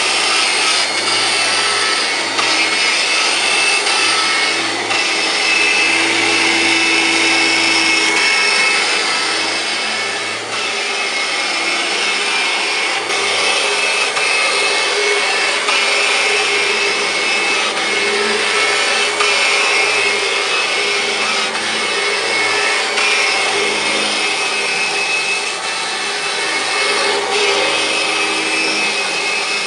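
1999 Kirby G5 upright vacuum cleaner running and being pushed back and forth over carpet: a steady, high motor whine with rushing air, dipping slightly now and then, with a few brief knocks.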